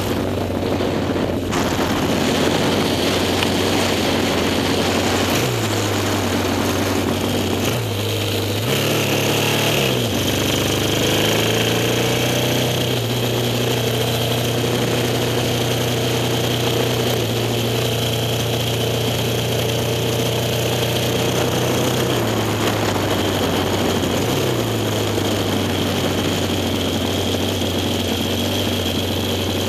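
Yamaha XS650 air-cooled parallel-twin engine of a vintage racing sidecar running hard at speed, heard onboard with steady wind rush. The engine note dips and climbs back several times in the first ten seconds and once more about three-quarters of the way through, as gears are shifted.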